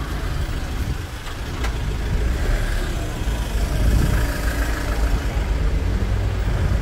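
Street traffic: car and van engines running and idling close by, a steady low rumble that swells a little a couple of seconds in.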